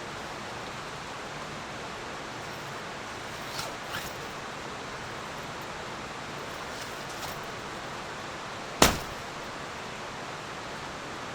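Steady rushing of a mountain stream. A single sharp knock about nine seconds in, with a couple of faint clicks around four seconds.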